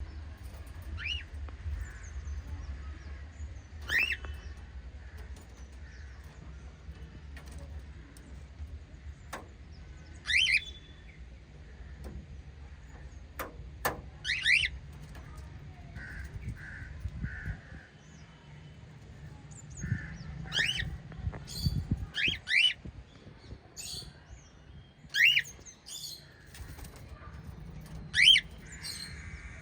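White pet lovebirds giving short, sharp chirping calls one at a time, each a quick sweep in pitch, every second or few. A low steady hum runs under the first half, and two sharp clicks come about midway.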